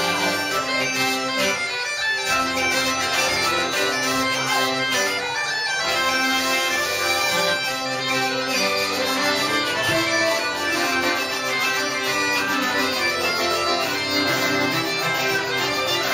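Live folk music led by bagpipes playing a tune over steady drones, with a band accompanying.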